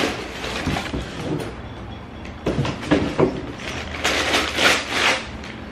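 Cardboard shipping box being opened and handled: a sharp snap at the start, then cardboard and packing rustling and scraping, in bursts about halfway through and again near the end.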